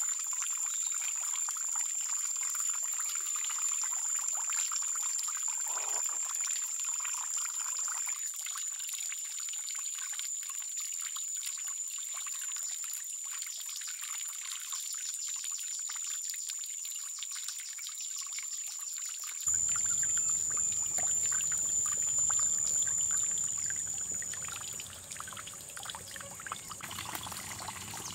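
Water trickling and pouring, with a steady high-pitched whine over it; the sound changes abruptly about two-thirds of the way in.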